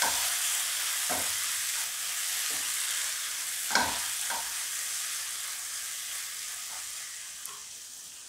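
Onion-tomato masala sizzling in a nonstick wok while a wooden spatula stirs and scrapes through it, with a sharper knock about four seconds in. The strokes thin out in the last few seconds and the sizzle slowly fades.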